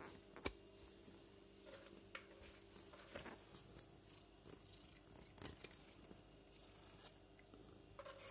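A handful of faint, sharp clicks and taps over a quiet room hum, the sharpest about half a second in and two close together past the middle: a cat pawing at dry kibble in a hard plastic slow-feeder plate.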